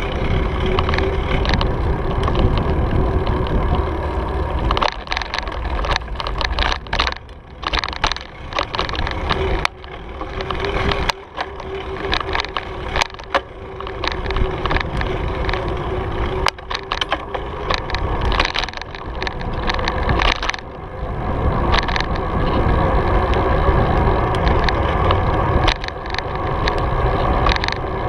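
Riding noise picked up by a camera mounted on a Cannondale bicycle: wind buffeting the microphone and a steady rumble from the tyres on the paved path. Through the middle stretch the bike and mount rattle and clatter in quick, irregular knocks over bumps.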